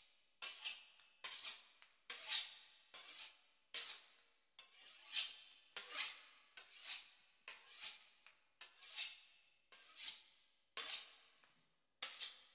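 Knife sawing back and forth through the pastry crust and meat of a beef Wellington: a dry, scraping rasp on each stroke, a little more than one stroke a second.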